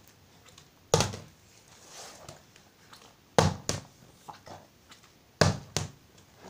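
Plastic bottle tossed in bottle flips, landing on a wood-effect floor and falling over: one thud about a second in, then two quick knocks in the middle and two more near the end.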